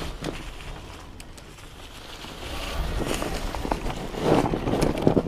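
Wind buffeting the action camera's microphone while an electric fat bike rides over thin snow, with rumbling tyre and bike noise. It gets louder from about two seconds in, with a few sharp clicks near the end.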